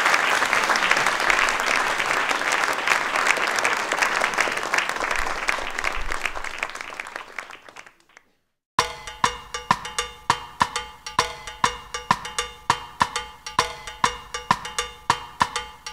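Audience applauding, fading out over about eight seconds. After a short silence, music starts: a steady run of ringing pitched percussion strikes, about three a second.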